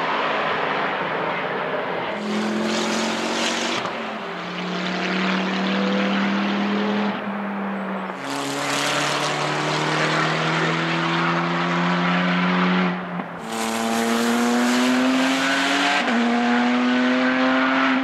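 Race car engines accelerating hard, one car after another, each note climbing in pitch and dropping at an upshift every few seconds, around four shifts in all.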